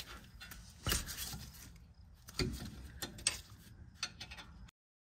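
Metal hand tools clicking and knocking on a 2018 Jeep Grand Cherokee's rear brake caliper as its caliper bolts are loosened, the lower one with an Allen wrench: a few scattered clicks, then the sound cuts off suddenly near the end.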